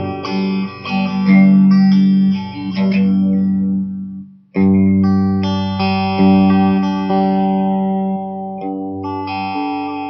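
Electric guitar played through effects, ringing out a G major chord note by note and as a whole. It is cut off about four and a half seconds in, then the chord is played and rung again.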